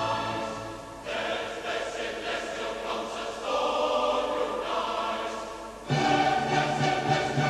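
Choir singing sustained chords with accompaniment. The sound grows louder and fuller about six seconds in, as a strong low part enters.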